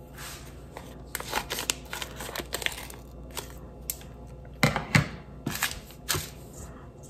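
Crinkling of a plastic packet of crispy-fry batter powder being handled, then snipped open with scissors about four and a half seconds in.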